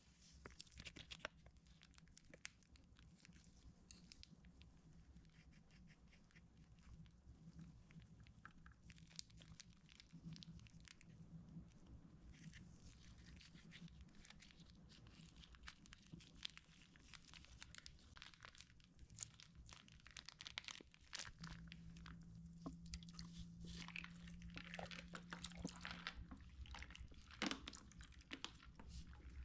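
Slime being handled, squished and pressed by hand: faint, irregular sticky crackles and small clicks, with a low hum underneath.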